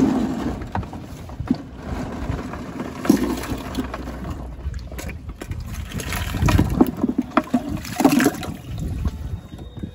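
Water splashing and sloshing as a mesh bag of bay scallops is worked in a boat's livewell and lifted out, with scattered short clicks of shells knocking together.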